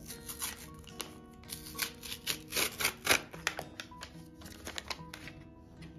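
A hand-made paper packet being pulled open by hand. The paper crinkles and rustles in irregular crackles, loudest about halfway through, over soft background music.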